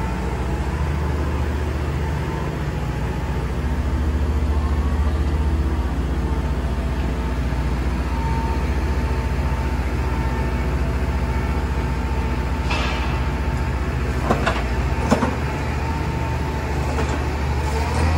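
Diesel engine of a Caterpillar M318D wheeled excavator (Cat C6.6 six-cylinder) running steadily with a low drone. A few short knocks come about two-thirds of the way in.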